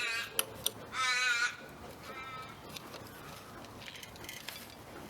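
A crow calling: three drawn-out, wavering caws about a second apart, the last one fainter. Two sharp clicks come between the first two calls.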